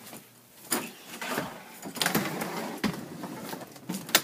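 Scattered knocks and scraping on a hardwood floor, with a sharp knock near the end.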